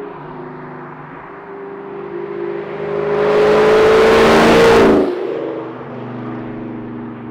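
2003 Ford SVT Cobra's supercharged 4.6-litre V8 accelerating hard through its catless Borla Stinger exhaust: the note climbs in pitch and grows loud, then the throttle is lifted about five seconds in and it falls back to a lower, steady drone.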